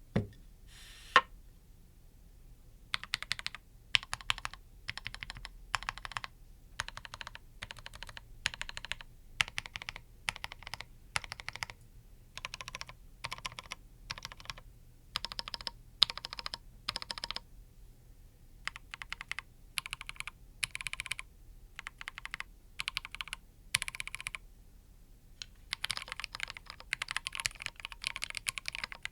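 Rakk Haribon mechanical keyboard with lubed Rakk Katala linear POM switches and Novelkeys Charcoal keycaps being typed on: short bursts of keystrokes with brief pauses between, turning to faster, continuous typing near the end. A single thump comes about a second in, before the typing starts.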